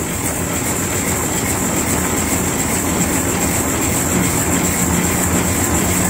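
Steady mechanical rumble and rattle of machinery running, with a steady high-pitched whine over it.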